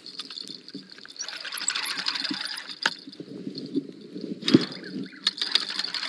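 Spinning fishing reel being cranked against a hooked fish, with rapid mechanical clicking and rattling and the rustle of hands and clothing close to the microphone, and one sharp knock about halfway through. Insects chirp steadily in the background.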